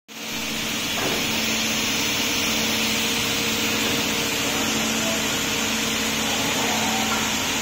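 Sliding table panel saw running: a steady machine hum with a constant hiss, the motor and blade spinning at an even speed.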